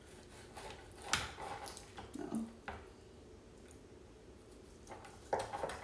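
Chef's knife cutting through a raw chicken breast along the breastbone on a plastic cutting board: faint squishing of skin and meat, with a few sharp clicks about one, two and three seconds in.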